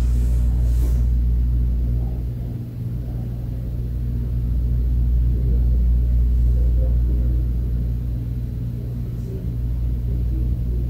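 Steady low background rumble and hum with no speech, dipping slightly about two seconds in and rising again.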